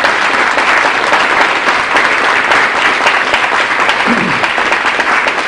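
Audience applauding steadily, a dense sustained round of clapping.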